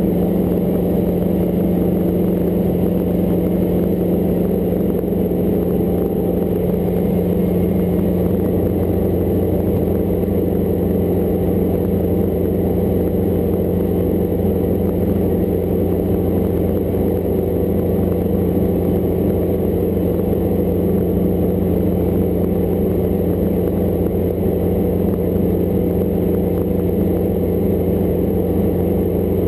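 A Hughes 269 light helicopter in flight: its piston engine and rotor run steadily, holding the same pitch and level.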